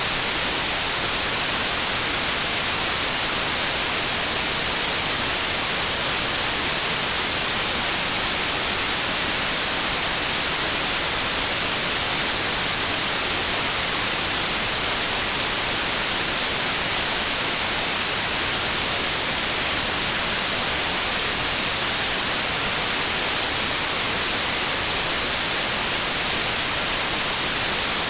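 Steady synthetic white noise: an even, unbroken hiss, brightest in the high frequencies, with no change in level.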